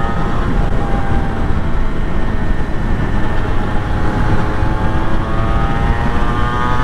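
Honda NSR250R MC21's two-stroke 90° V-twin engine running while the bike is ridden on the road. Its note eases slightly at first, then climbs again from about four seconds in as the rider opens the throttle. Heavy wind rumble on the helmet-mounted microphone runs under it.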